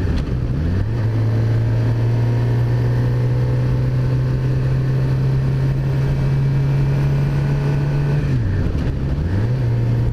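Suzuki GSX-R600 inline-four engine running steadily on the move, heard from on board over road and wind noise. Twice the engine note drops and climbs back up: about a second in, and again near the end.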